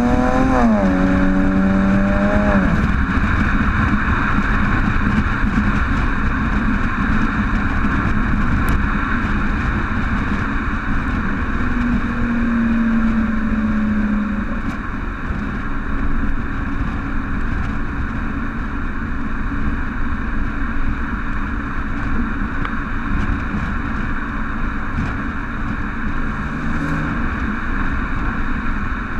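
Stock exhaust of a 2008 BMW 335i E92 twin-turbo inline-six, heard at the tailpipe while driving. The exhaust note rises in pitch in the first second or so, then drops back. For the rest of the stretch a steady rush of road and wind noise covers it, with the engine note surfacing briefly now and then.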